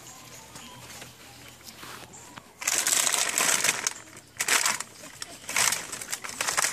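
Plastic bag crinkling as it is handled in bursts: a long burst of about a second, then three shorter ones.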